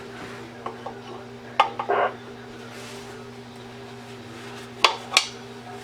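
A few sharp metallic clicks and clinks, two about a second and a half in and two more near the end, over a steady low electrical hum.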